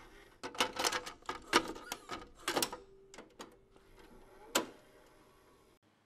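A VHS cassette is pushed into a VCR: a quick run of clicks and clunks as the loading mechanism takes the tape, then a short motor hum, and a single sharp clunk about four and a half seconds in as the machine goes into play. A faint hiss follows and stops just before the end.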